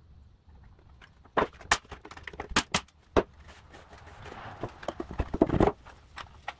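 Wooden parts knocking and tapping as small strips are set in place inside a wooden cabinet: a quick run of sharp taps. A rag rubs over the wood about four seconds in, with several heavier knocks.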